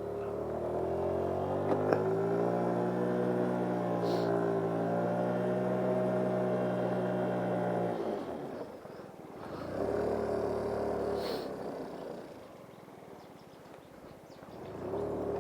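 GY6 50cc scooter's four-stroke single-cylinder engine revved hard while the rear tyre spins on grass to wipe off mud. It climbs over the first two seconds, holds high for several seconds, then drops suddenly. It revs again briefly about ten seconds in, eases off, and picks up once more near the end.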